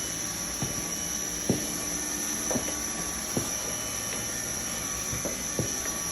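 Steady hiss of a hot-air plastic welding gun's blower running, with a high steady whine over it, and a few irregular light taps and clicks.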